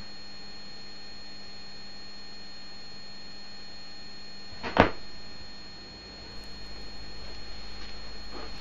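Steady electrical hum, then about five seconds in a single sharp click as the turntable's tonearm is set down. After that come a low rumble and faint crackle: a stylus running in the record's lead-in groove before the music starts.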